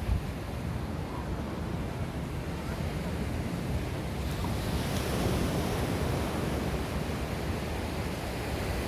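Sea surf washing onto the beach, a steady wash that swells as a wave comes in around the middle, with wind buffeting the microphone.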